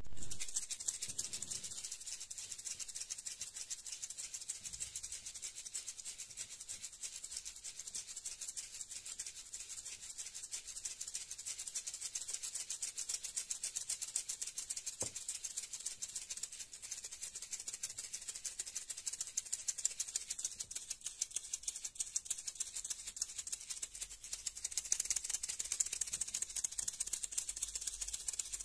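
Maracas shaken continuously in a fast, even rattle, a little louder in the last few seconds.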